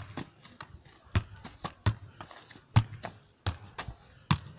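A soccer ball being juggled: irregular dull thuds, a few a second, as the ball is kicked up off the player's feet and legs.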